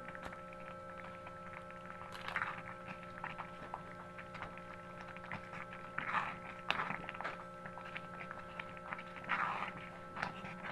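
Thick, sticky glutinous-rice pudding being stirred with a spatula in a stainless steel pot: small scrapes and clicks, with a wet squelch about two seconds in, two around the middle and one near the end. A steady hum runs underneath.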